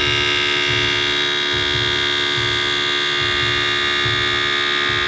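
Air-ride suspension compressor running steadily, a high whine with a low pulsing, pumping up the air shock to raise the motorcycle.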